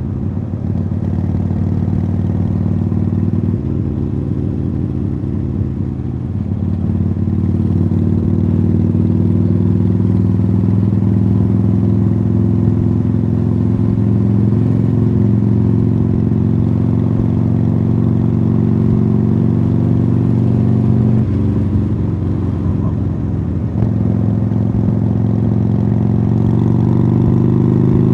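Harley-Davidson Sportster Iron 883's air-cooled V-twin, breathing through Khrome Werks Tapered 3 aftermarket exhausts, running under way. Its pitch changes in steps a few times as the revs change, then rises steadily near the end as the bike accelerates.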